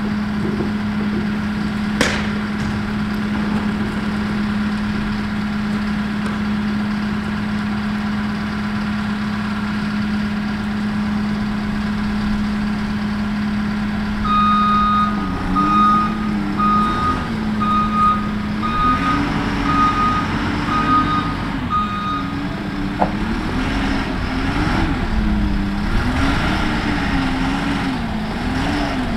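Telehandler's diesel engine running steadily, then revving up and down in waves as it lifts a wooden roof truss. Its backup alarm beeps about once a second for several seconds from about halfway through, and there is a sharp knock about two seconds in.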